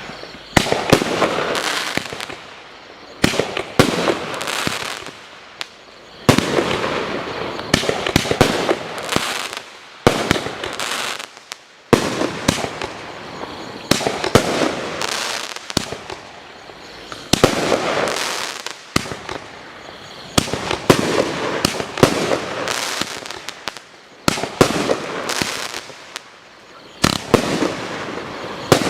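Consumer firework cake firing shot after shot, every two seconds or so: each a sharp bang followed by a second or two of hissing, crackling bursts.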